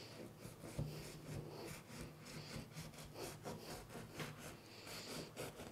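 A knife sawing through the baked crust of a round kulaç loaf on a wooden board: faint, irregular rasping strokes.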